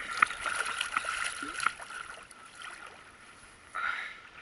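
Water splashing and sloshing against the side of a kayak as a hooked smooth-hound shark is brought alongside, with a few sharp clicks and knocks in the first couple of seconds and a short burst of louder splashing near the end.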